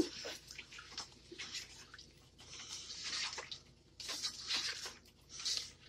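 Beef pieces and yogurt being stirred and fried with a spatula in a nonstick pot: wet squelching and sizzling that comes and goes with each stroke, with a few light spatula taps.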